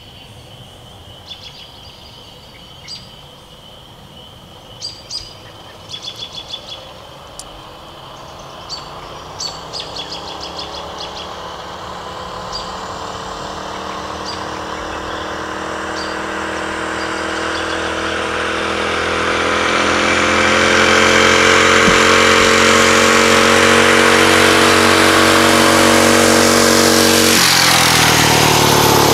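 Mini bike's small engine running flat out with its governor disconnected, approaching and growing steadily louder, its pitch dropping sharply as it passes near the end. Birds chirp during the first half.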